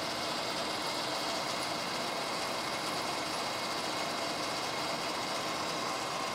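Circa-1948 Warner & Swasey No. 2 turret lathe running steadily while a twist drill on its turret drills into the spinning bar stock, a constant machine hum with no breaks.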